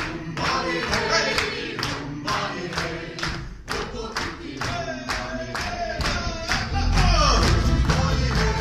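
Live band with fiddles, accordion and guitar playing and singing, with the audience clapping along in time, about three claps a second. About seven seconds in, a falling slide leads into the full band with a heavy bass, and the music gets louder.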